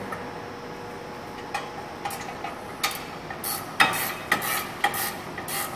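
Ratcheting wrench clicking as it turns a caliper bracket bolt on a rear disc brake: a few scattered clicks, then a quicker run of clicks from about three and a half seconds in, some with a short metallic ring.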